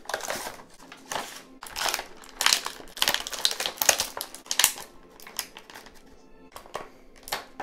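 Clear plastic blister packaging crinkling and crackling as it is handled and the action figure is pulled out of it, the crackles thinning out over the last couple of seconds. Quiet background music underneath.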